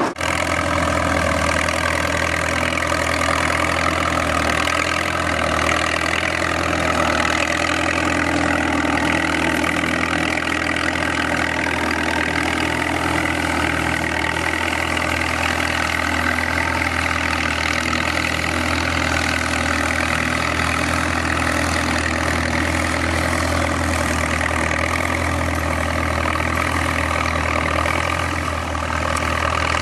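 Vintage farm tractor engine running steadily, pulling a plough through the soil.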